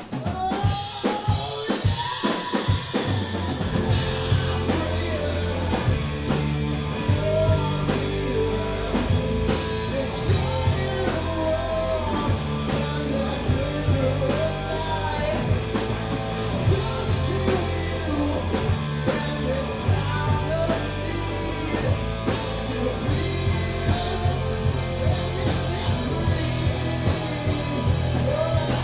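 Live rock band playing: drum kit, electric guitar and electric bass, with a man singing. The drums play nearly alone at first, and the bass and full band come in about four seconds in.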